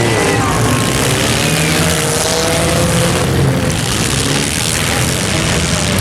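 Several compact cars' engines revving together, their pitch rising and falling over a dense, steady din.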